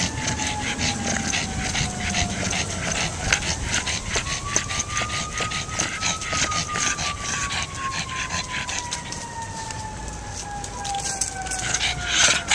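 An emergency-vehicle siren slowly falls, rises and falls again in one long wail. Under it runs a fast, steady rhythmic noise close to the microphone, about four strokes a second, from the camera-carrying pug.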